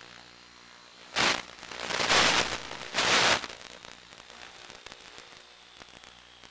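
Three loud bursts of hissing radio static in the analog FPV video-link audio, about a second in and lasting to about three and a half seconds, as the signal breaks up during a steep bank. A faint steady high whine from the flying wing's electric motor runs underneath.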